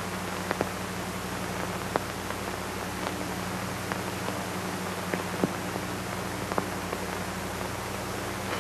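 Steady static-like hiss over a low hum, with scattered sharp clicks at irregular moments.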